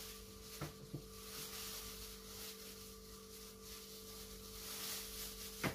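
Quiet room with a steady electrical hum of two low tones. A few faint clicks, early on and again at the very end, come from goose heads being handled on a plastic tray.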